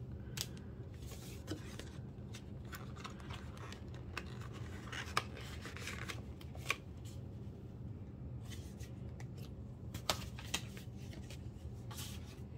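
Photocards and small album packaging being handled and sorted by hand: soft card-shuffling rustles with scattered light clicks and taps at irregular intervals, over a steady low hum.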